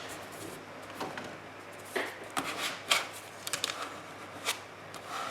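Paper being handled and pressed into place: a few light rustles and sharp ticks as a scrap of tea-dyed paper is glued down with a glue stick.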